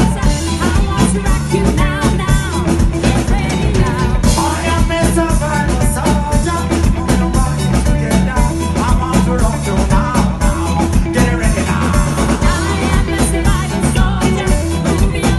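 Live reggae band playing loudly: electric guitars, keyboard and drum kit keeping a steady beat, with singing over it.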